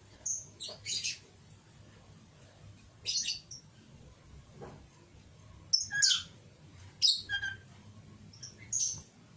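Pet lovebird (pastel-green colour form) chirping in short high-pitched bursts, about six of them at irregular intervals a second or two apart.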